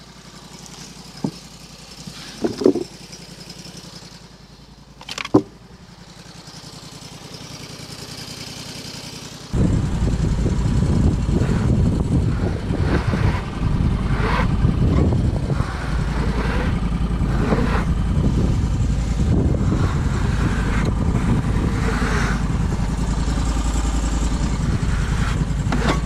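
The engine of a portable bandsaw sawmill running steadily. For the first ten seconds or so it is fainter, with a few sharp knocks. Then it suddenly becomes much louder and closer and keeps going.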